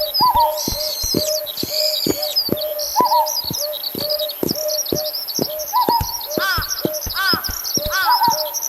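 Sound-effect track of many small birds chirping and tweeting. Under it, a short tone with a knock repeats about twice a second, and a lower call comes back every few seconds. Near the end there is a brief run of falling chirps.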